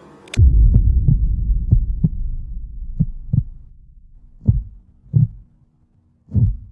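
Heartbeat sound effect: a sharp click about a third of a second in, then low thumping beats in pairs that slow down.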